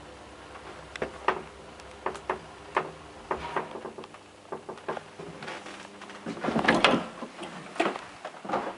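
Freight elevator machinery clicking and knocking irregularly, with a low hum that stops about three and a half seconds in and a loud cluster of clunks near seven seconds.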